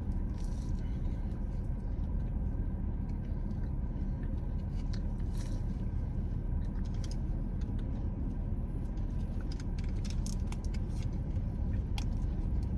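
Steady low rumble of a car running, heard inside the cabin, with scattered small clicks and rustles as fast-food packaging and food are handled.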